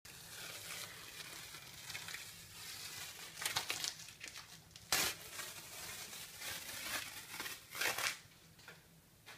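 Rustling and crinkling of something being handled, with louder swells and one sharp knock about five seconds in.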